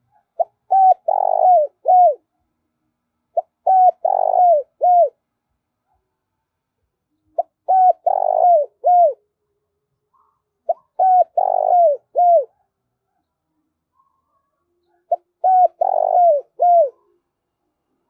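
Spotted dove cooing: five repeated phrases a few seconds apart, each a few quick short notes, a longer coo and a falling final note.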